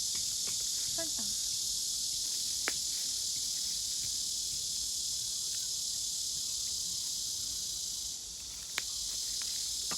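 A steady chorus of crickets, with a few light clicks.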